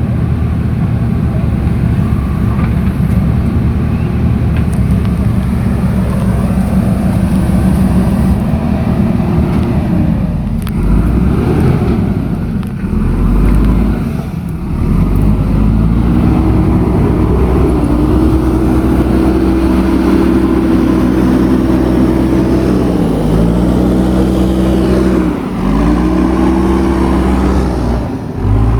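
JCB 3DX backhoe loader's diesel engine running under working load, its pitch dipping sharply several times as the hydraulics take load and then climbing back.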